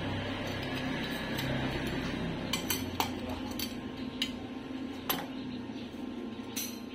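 Stainless steel tube and round base fitting clinking and tapping together as they are handled and fitted, a scatter of sharp metallic clicks over a steady low hum.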